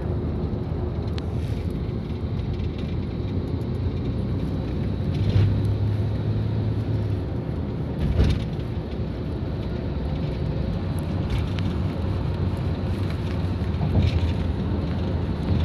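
Steady low rumble of a car driving at highway speed, heard from inside the car: tyre and engine noise, with a few brief louder swells about five, eight and fourteen seconds in.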